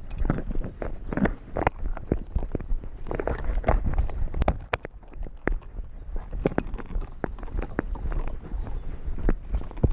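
Six-month-old Doberman pinscher walking on a street, heard from a camera strapped to its back: an uneven run of clicks and knocks from its footfalls and the jostling mount, several a second, over a low rumble.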